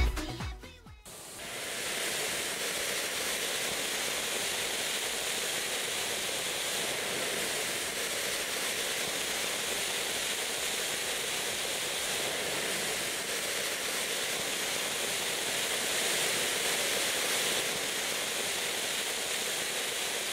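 Silver Spring ground fountain firework spraying sparks with a steady hiss, starting about a second in.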